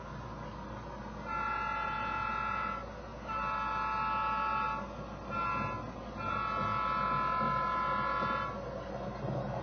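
Model locomotive's sound-decoder horn sounding the grade-crossing signal: two long blasts, one short, then one long, each a chord of steady tones. A steady low rumble runs underneath.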